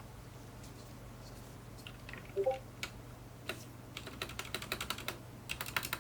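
Typing on an Anne Pro 2 mechanical keyboard with Cherry MX Brown switches freshly lubed with Krytox 205g0. A few separate key presses are followed, about halfway through, by a fast run of keystrokes. A brief pitched blip a little over two seconds in is the loudest moment.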